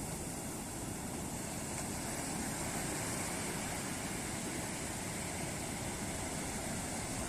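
Ocean surf washing onto a beach: a steady roar of waves with no separate crashes, swelling slightly about two seconds in.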